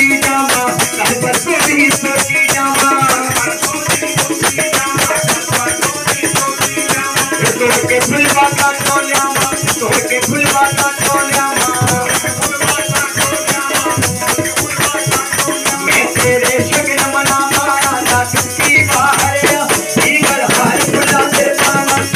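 Harmonium playing a devotional tune over a fast, steady rattling hand percussion.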